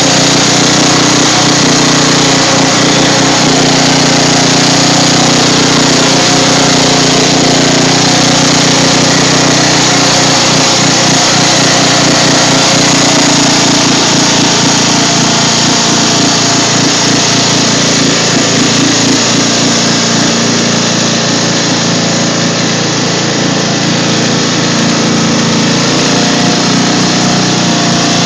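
Craftsman riding lawn mower's engine running steadily under load as the mower pushes through deep water, with the splashing and churning of its chained rear tyres in the water.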